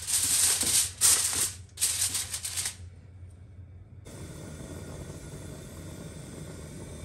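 Aluminium foil crinkling in several loud bursts as it is handled over a baking tray. About four seconds in a steady low mechanical hum starts abruptly.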